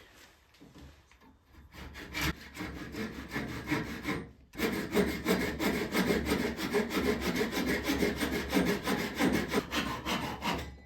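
Hand saw cutting off the protruding end of a wooden rowboat gunwale, with light, uneven starting strokes, a brief stop about four seconds in, then a steady run of fast back-and-forth strokes.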